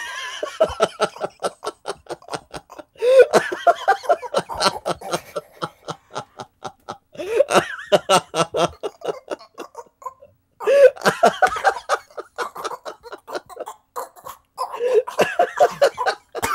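Two people laughing hard together: rapid ha-ha pulses in about five bouts, broken by short pauses for breath.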